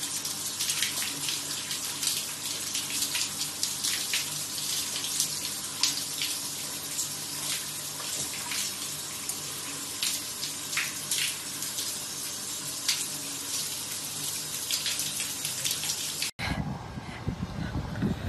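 Running water splashing steadily, as during a bath. It cuts off abruptly about sixteen seconds in and gives way to a low rumble.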